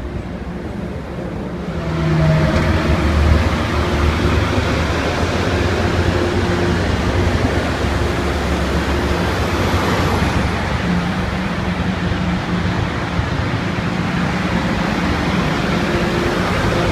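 MBTA HSP46 diesel locomotive pushing a commuter train out of the station. Its engine hum rises as it throttles up about two seconds in, then runs steadily along with the passing coaches and highway traffic.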